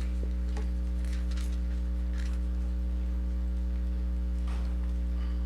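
Steady low electrical hum from the microphone and sound system, with a few faint, brief rustles.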